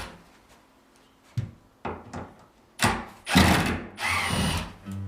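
Power drill run in a series of short bursts, a couple of brief ones and then longer runs near the end.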